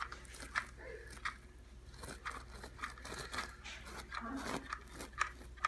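Irregular sharp clicks and crunches as thermal glue is spread over delaminated carpet backing with a T-nozzle, over a steady low hum.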